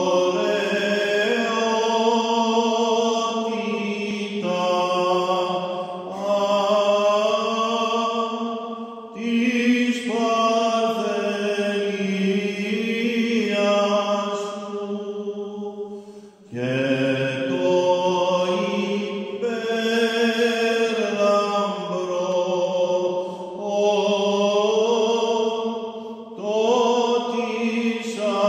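A male cantor singing solo Byzantine chant in long, slowly bending held notes. The phrases are broken by short breaths, the clearest about sixteen seconds in.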